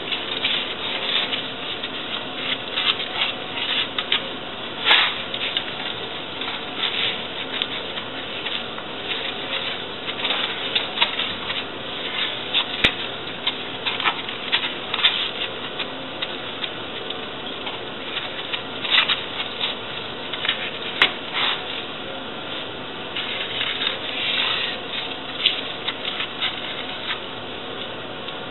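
Irregular scratching and tapping from hand work on a van's underbody, over a steady hiss.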